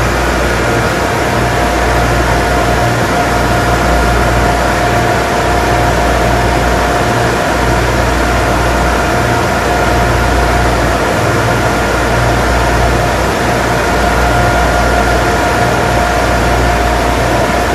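Barge engine-room machinery running steadily: a loud, dense mechanical din with a deep rumble, a slow pulsing throb low down and a steady whine on top.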